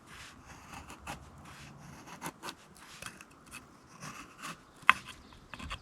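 Scandinavian grind knife blade shaving curls down a wooden stick to make a feather stick: a run of short, irregular scraping strokes, with one sharp click about five seconds in.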